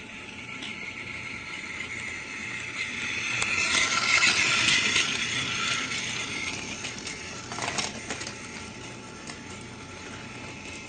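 Small battery-powered toy's motor and plastic gears whirring steadily with light clicking. It swells louder about four seconds in, then fades back.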